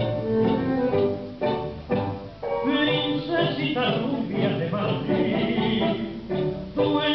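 Recorded Argentine tango music with orchestra and a singer, played over a dance hall's loudspeakers.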